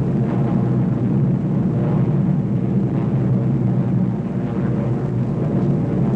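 Steady low drone of a propeller aircraft's piston engine in flight.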